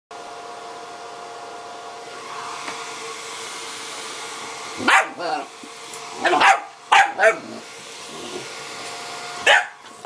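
Hair dryer running with a steady hum throughout, and a puppy barking at it: about six sharp barks in bunches from about five seconds in.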